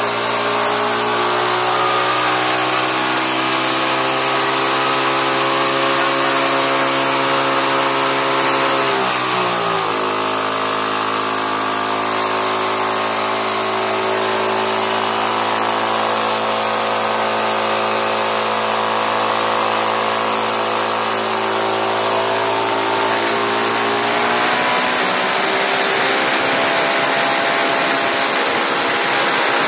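Single-cylinder Briggs & Stratton lawnmower engine, running on oxygen and fuel with no throttle or choke butterfly, holding a steady, very high speed under a loud hiss. Its pitch dips for a moment about a third of the way in and then recovers. Near the end the engine note slides down and fades, leaving mostly the hiss.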